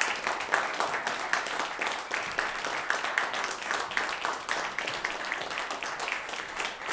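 Small audience applauding, many hands clapping in a dense, steady patter.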